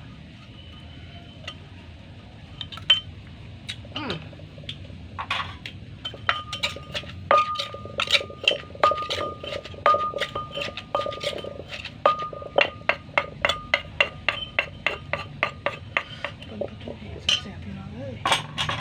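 Steel spoon and wooden pestle clinking and scraping in a clay mortar as the pounded fish and chili mixture is worked. Scattered clinks at first, then a quick run of sharp clinks, about three a second, through the middle.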